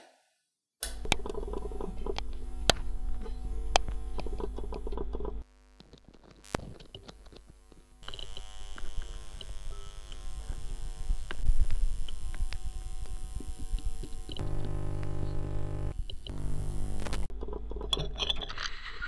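Music: sustained chords over a steady low bass. It starts after a brief silence, cuts off abruptly about five seconds in, and comes back a few seconds later.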